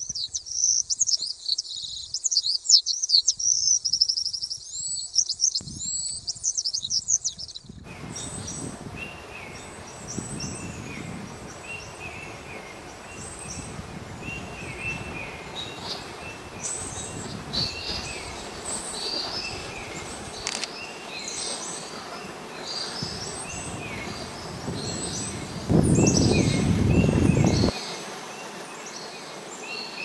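Small birds chirping and calling, with many short, repeated chirps over an outdoor background. For the first several seconds only the high chirping is heard, then the fuller background comes in. Near the end a low rumble lasts about two seconds.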